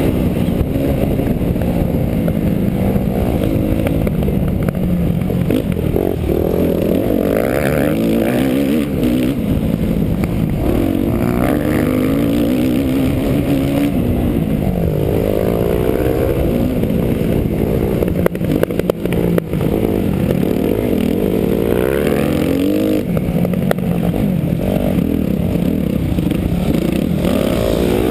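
Motocross bike engine revving up and falling back over and over as it is ridden hard around a dirt track, heard close from the rider's own bike. A cluster of sharp knocks comes about two-thirds of the way through.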